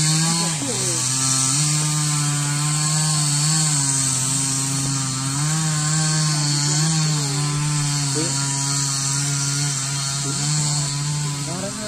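Two-stroke chainsaw running hard through a tree-felling cut. Its engine pitch drops and recovers several times as the chain loads up in the trunk.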